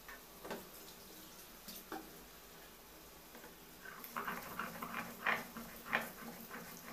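Stone roller crushing raw prawn heads and garlic on a flat grinding stone: a few faint taps, then from about four seconds in a run of short rough scraping, crunching strokes as the shells are ground into paste.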